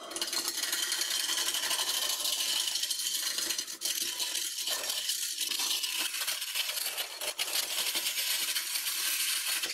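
Spindle gouge cutting into a spinning blank of green oak on a wood lathe: a steady hissing shaving noise over the lathe's running hum, with two brief breaks, stopping abruptly at the end.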